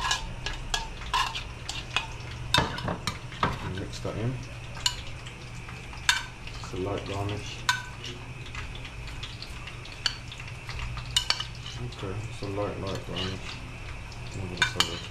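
Metal kitchen utensils clinking and scraping against pots and dishes while food is stirred, with irregular sharp clinks.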